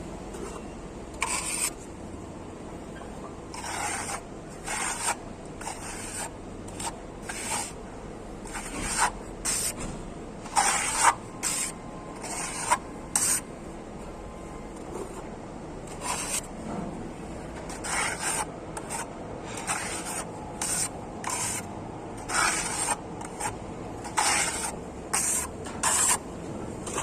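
A plastering trowel working a fine-grain fibre-reinforced skim coat over masonry: about twenty short scraping strokes at uneven intervals.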